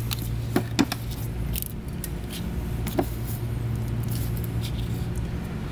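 A steady low hum in the background, with a few small clicks and knocks from hands working the new timing belt onto the cam gears: three clearer knocks, two of them close together under a second in and one about three seconds in.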